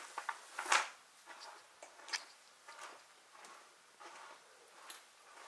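Footsteps walking slowly across a carpeted floor: soft, irregular steps with a few sharper light taps among them.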